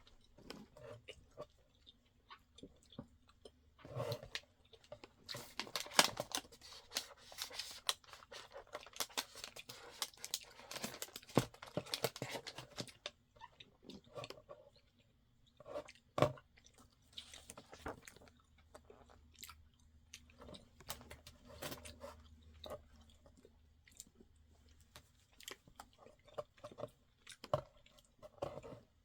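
Close-up chewing of a soft grape fruit chew, wet mouth clicks and smacks, busiest in a long run in the middle.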